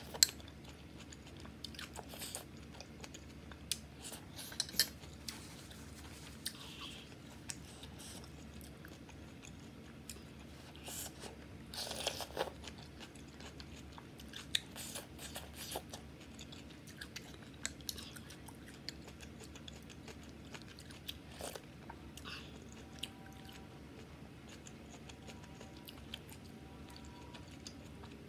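A person eating bathup, a spicy Bhutanese noodle soup, close to the microphone: chewing and slurping soup and greens off a metal spoon, with many short sharp clicks and a longer slurp about twelve seconds in.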